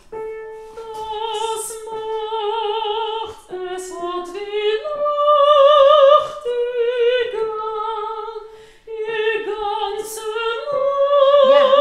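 A trained classical female voice singing sustained notes with a wide vibrato, in phrases with short breaks between them. It is loudest on a higher held note about five to six seconds in and again near the end.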